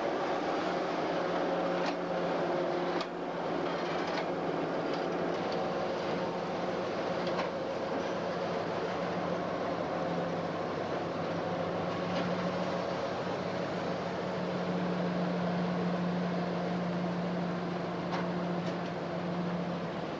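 ST44 (M62) diesel locomotive's two-stroke V12 engine running steadily, a continuous low drone, with a few sharp clicks along the way.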